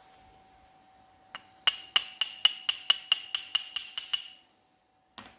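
Hammer tapping new bushings into a steel truck door hinge: one light tap, then a quick run of about a dozen sharp metal-on-metal strikes, roughly five a second, each with a bright ring, stopping about four seconds in.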